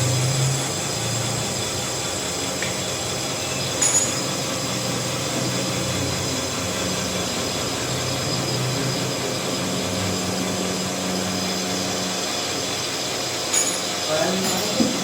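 Lathe machine running steadily, a continuous mechanical hum with several steady tones, with a few light metallic clicks about four seconds in and near the end.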